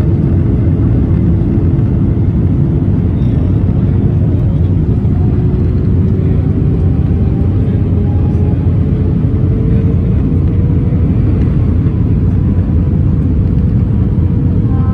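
Cabin noise of an Airbus A319 during descent: a steady deep roar of the engines and airflow. An engine tone climbs slowly in pitch for several seconds in the middle, then holds steady.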